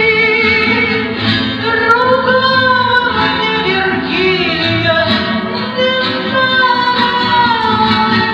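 Music with a singing voice holding long notes that slide slowly up and down over a steady, full accompaniment.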